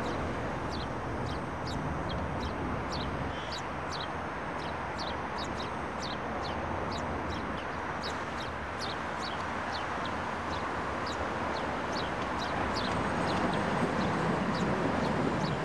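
Small birds chirping over a steady hum of city traffic: a long run of short, high chirps that drop in pitch, two or three a second. A little more low rumble comes in near the end.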